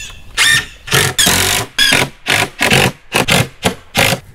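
Cordless drill driving screws through 2x3 boards into plywood in a run of short bursts, the motor whirring up and stopping each time.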